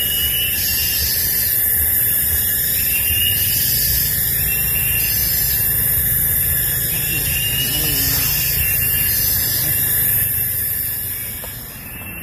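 Tropical forest chorus: a steady high-pitched insect buzz with a short rising call repeating about every two seconds, over a low rumble. It drops a little in level near the end.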